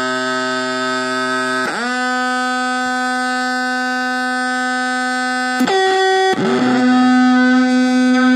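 Custom noise box built from two high-gain fuzz circuits and a delay, droning a steady, harsh distorted tone as its knobs are turned. The pitch swoops down about two seconds in, jumps higher briefly near six seconds, then swoops back down and gets louder.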